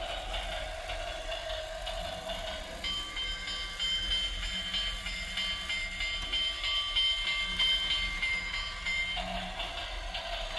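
Small electric motor of a battery-powered toy train whirring steadily as it runs on plastic track. For about six seconds in the middle the whine changes to a higher, thinner pitch while the train rides the spiral lift.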